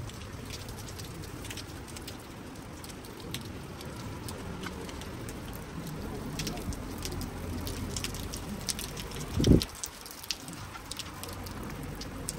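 Rain pattering, with scattered drops ticking close by, and a single low thump about nine and a half seconds in.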